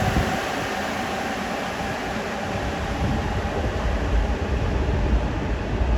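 Sapporo Municipal Subway 8000 series rubber-tyred train running out of the station: a steady rushing noise, with a low rumble that swells from about halfway through.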